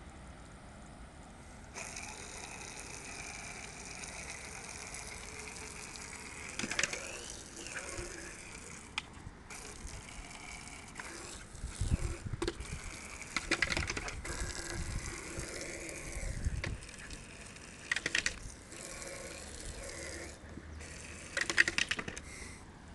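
Garden hose spray gun jetting water in a steady hiss that starts suddenly about two seconds in and cuts out briefly a few times, with several short bursts of louder clattering and spattering.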